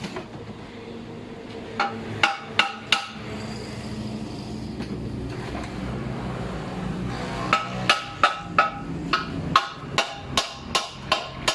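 Hammer blows on metal, each with a short metallic ring: four quick strikes, then a longer run of about a dozen blows near the end, two to three a second.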